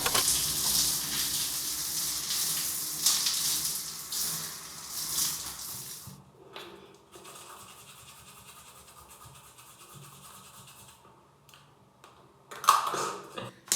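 Washing at a bathroom sink: a steady hiss, loud for about six seconds and then fainter, with a short louder sound near the end.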